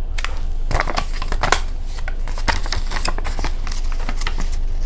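Paper instruction sheet crinkling and crackling as it is handled and smoothed flat by hand, in irregular sharp crackles.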